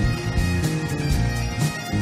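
Live band playing a folk tune: a sustained melody line over a bass line that changes note about every half second, with a steady drum beat.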